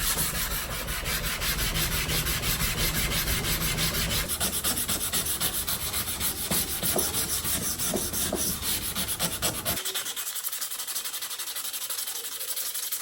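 Cast-iron sole of a Stanley No. 3 hand plane rubbed back and forth on sandpaper in quick, steady strokes, lapping the sole flat.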